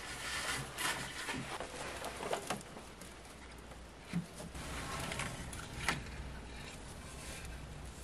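Rustling and crackling of dry twigs and evergreen sprigs being handled and bound onto a twig wreath with twine, with a few sharp clicks.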